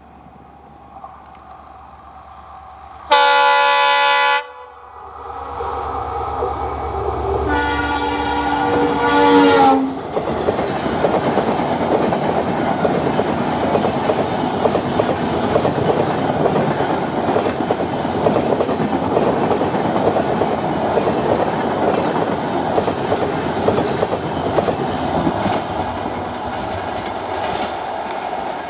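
Indian Railways diesel locomotive of the EMD-design WDP4/WDG4 family blowing its air horn twice, a short blast about three seconds in and a longer one from about eight seconds that dips slightly in pitch as it ends. The train then passes close by with steady rolling noise and wheels clicking over the rail joints.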